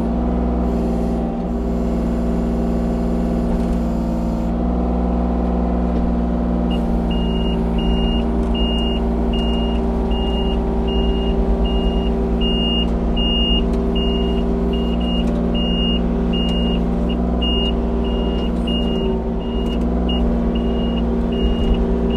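Kubota U35-4 mini excavator's diesel engine running steadily under working load. From about seven seconds in, its travel alarm beeps steadily, under two beeps a second, as the machine tracks.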